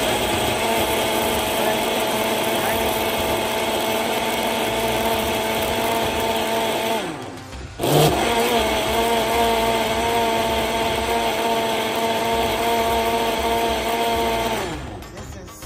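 Countertop blender motor running, blending fruit into a smoothie. It winds down and stops about seven seconds in, starts again a second later, and winds down to a stop near the end.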